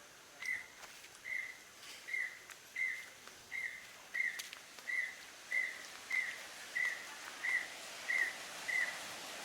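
A bird repeating one short, high note over and over at an even pace, about one and a half calls a second.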